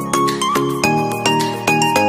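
Background music: a melody of short, evenly paced notes over sustained chords, with a regular beat of about three strokes a second.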